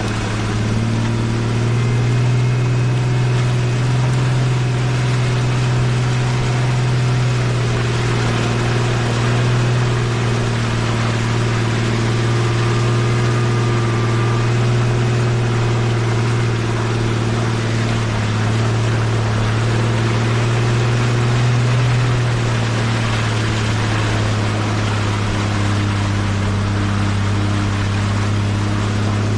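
Jeep engine running steadily at low revs while the Jeep is being driven, a low even drone that settles slightly lower about 22 seconds in.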